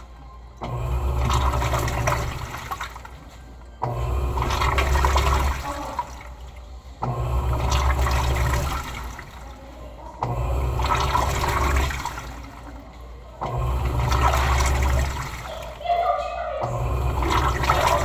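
Electrolux Turbo Economia 6 kg (LTE06) top-loading washing machine agitating a load in water: the motor hums on for about two seconds, stops, then starts again about every three seconds, with water sloshing throughout.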